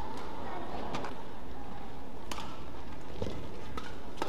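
Badminton rackets striking the shuttlecock: three sharp cracks, a second or more apart, over a steady hall ambience.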